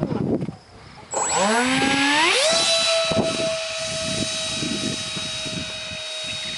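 Electric ducted fan of a scratch-built F-18 model jet spooling up: about a second in, a whine rises in pitch for about a second and a half, then holds a steady high whine as the model flies. A short falling whine comes at the very start.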